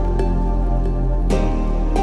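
Background music of the new-age kind: held synth notes over a steady bass, moving to new notes about a second and a half in.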